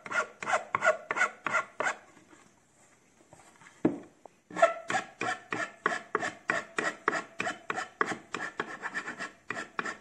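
Fine flat file rasping along the edge banding of an MDF panel in quick strokes, about four a second, filing the banding flush with the panel edge. The strokes stop for about two seconds early on, broken by a single knock, then resume.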